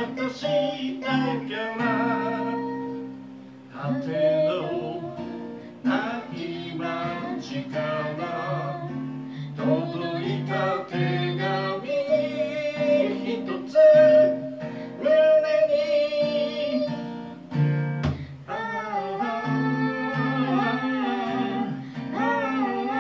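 A man singing to his own acoustic guitar, chords strummed and picked, the voice coming in phrases over the guitar.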